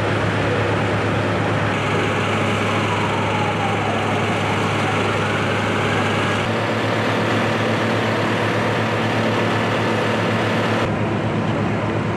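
Fire engine running steadily to drive its pump, a deep constant drone under a broad hiss of water jets. The mix changes abruptly in tone about two, six and a half and eleven seconds in.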